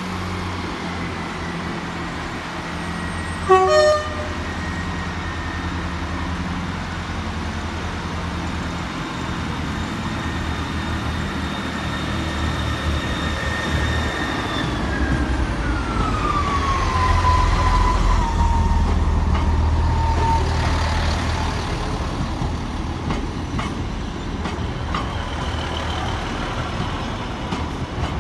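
Class 158 and Class 153 diesel multiple units pulling away under power, their engines running steadily. A short, loud horn-like blast of stepped tones sounds about four seconds in. About halfway through, a high whine falls in pitch as the engine sound grows louder.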